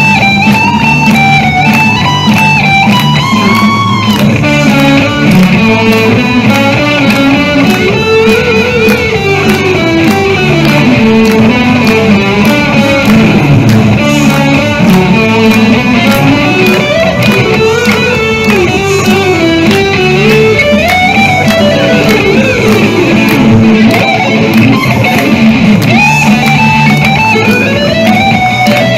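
Electric guitars played live through amplifiers in a rock instrumental: a lead melody with bends and slides over a steady accompaniment.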